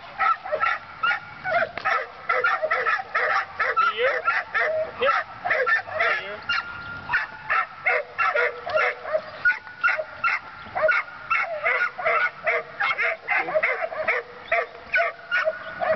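A muzzled young dog barking in a rapid, unbroken run of about three barks a second, with high yips and whines between the barks.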